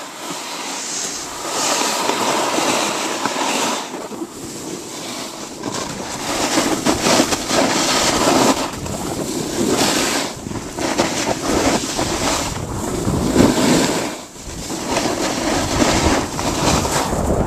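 Wind rushing over the microphone while riding downhill, mixed with board edges scraping and hissing across packed groomed snow, swelling and easing in surges every few seconds.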